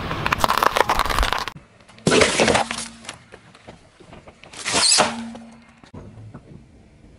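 Hard candy canes cracking and crunching under a car tyre, a dense crackle of many sharp snaps lasting about a second and a half. It is followed by two short loud bursts of noise, about two seconds apart.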